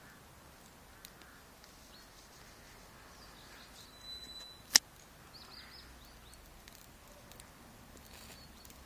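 Quiet outdoor ambience with faint, brief bird chirps. A single sharp click about halfway through stands far above everything else.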